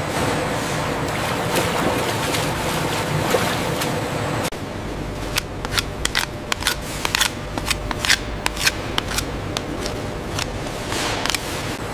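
Steady rushing, water-like noise from steaming hide-soaking vats. About four and a half seconds in it gives way to a run of short, irregular scraping strokes as a curved fleshing knife is drawn across a wet hide on a steel table.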